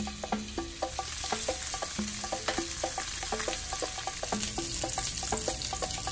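Chicken pieces sizzling and spitting in hot oil in a ridged grill pan, a steady crackling hiss. Light background music of short, evenly repeating plucked notes plays over it.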